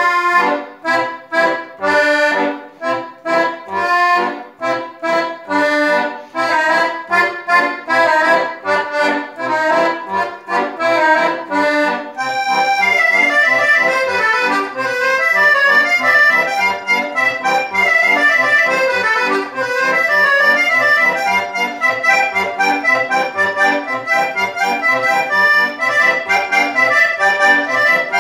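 Solo accordion playing a lively dance: short, detached chords over a steady bass pulse, then about twelve seconds in a fast, continuous run of notes, brighter and more sustained.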